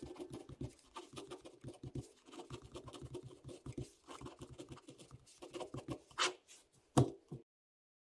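Ballpoint pen writing on squared paper: quick, irregular scratching strokes, with two louder short knocks near the end before the sound cuts off.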